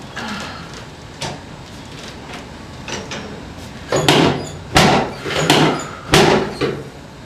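Knocks and clunks on a chiropractic adjusting table as the patient is worked on: a few light clicks, then about four seconds in a run of five loud clunks roughly half a second apart.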